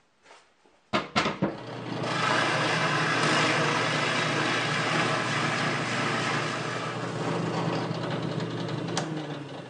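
Drill press running steadily as a large Forstner bit bores into a plywood bandsaw wheel, drilling out wood from the wheel's heavy spot to balance it. A few knocks come about a second in, before the steady drilling sound sets in.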